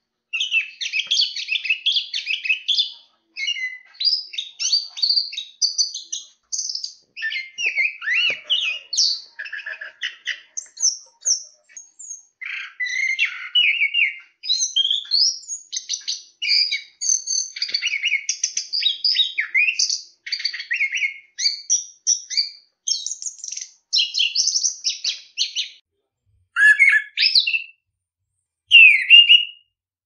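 Chestnut-capped thrush (anis kembang) singing a fast, varied, nearly unbroken run of chattering and whistled phrases with brief pauses. Near the end the song thins to two separate short phrases.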